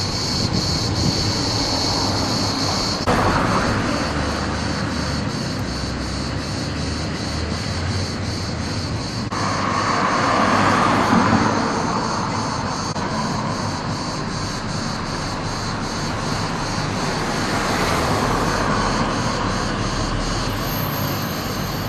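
Outdoor road traffic noise, the steady hiss and rumble of passing vehicles, with one vehicle swelling louder about ten seconds in. The background shifts abruptly a few times.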